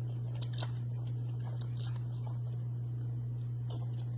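Close-miked chewing and biting of food, with several sharp crunchy crackles spread through, over a steady low hum.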